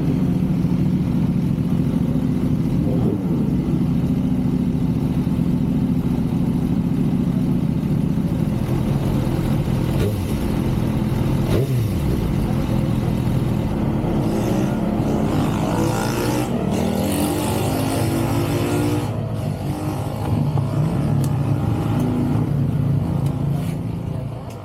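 A motor vehicle's engine running steadily at speed, a constant low drone. About two-thirds of the way through, a louder hiss rises over it for a few seconds.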